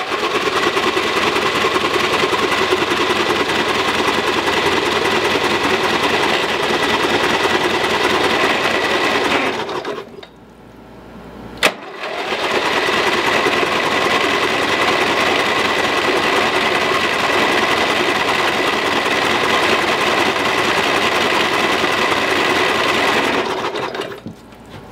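Riding mower's 14 hp engine cranking over on its electric starter in two long, steady runs of about ten seconds each, each begun by a sharp click, with a steady whine through it. The engine, just freed from being locked, turns over without catching.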